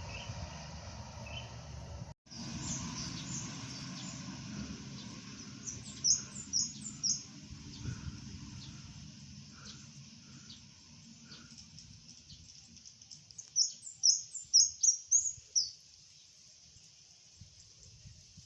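Small bird chirping in two quick runs of short, high, falling notes, about six seconds in and again near the end. Beneath them a low rumble of passing traffic fades away in the first half.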